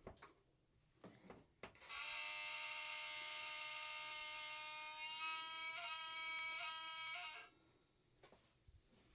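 Nitrogen blown through a copper refrigerant line set to flush it: a whistling hiss that starts abruptly about two seconds in, holds for about five and a half seconds with its pitch jumping slightly a few times near the end, then cuts off.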